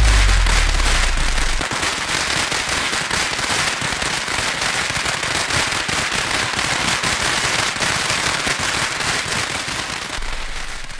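A long string of firecrackers going off in a dense, unbroken crackle of rapid cracks, fading away near the end. A low bass note left over from the music dies away in the first second or two.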